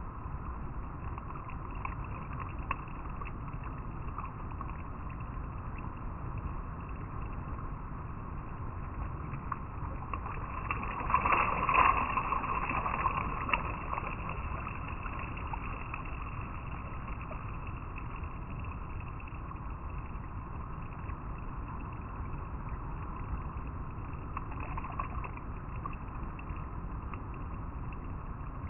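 River water flowing over rocks, a steady rushing and burbling, with a louder splashing surge about eleven seconds in that lasts a few seconds.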